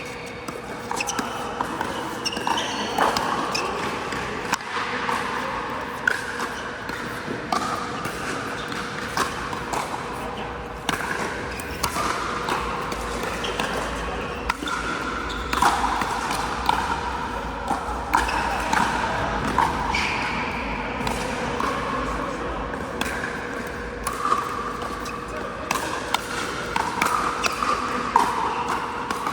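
Pickleball paddles popping against a plastic ball, sharp hits roughly once a second, echoing in a large indoor hall with players' voices around them.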